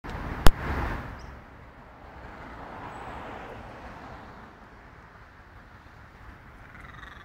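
Road traffic passing, a hazy rush that swells and fades twice, with a single sharp click about half a second in.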